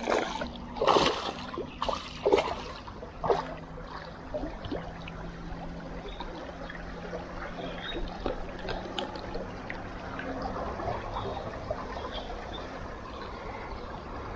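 River water trickling and flowing, with a few sharp knocks or splashes in the first few seconds and a faint steady low hum underneath.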